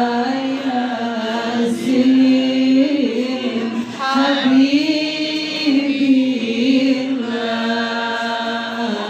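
Chanted singing: a voice holding long notes that rise and fall slowly in steps, with a fainter higher voice or accompaniment above it.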